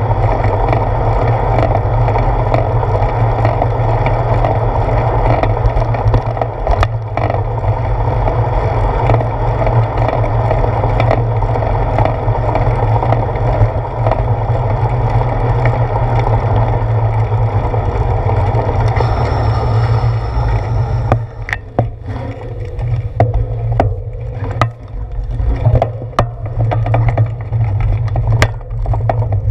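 Wind buffeting and road rumble picked up by a handlebar-mounted GoPro on a moving bicycle. From about two-thirds of the way in the rumble eases and uneven sharp clicks and knocks come through as the bike slows.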